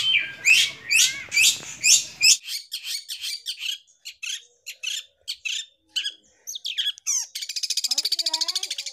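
Long-tailed shrike (cendet) singing: sharp, separate high calls with short pauses between them, then about seven seconds in a fast, rattling trill.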